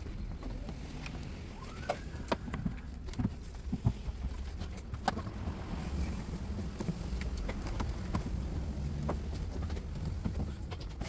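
Irregular light knocks and taps as a new rubber boot seal is worked onto the edge of a car's boot opening, over a steady low hum.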